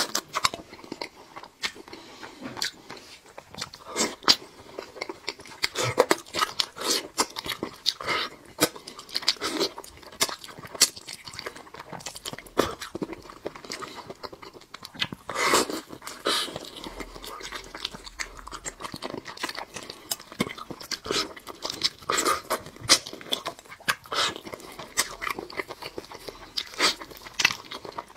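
A person biting and chewing braised meat close to a clip-on microphone, with frequent irregular sharp crunches.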